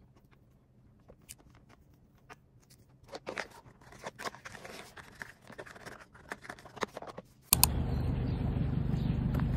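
Light clicks, scrapes and rustles of wired earphones being wound up and set into a clear plastic case. About seven and a half seconds in, it cuts suddenly to a loud, steady low rumble of outdoor noise.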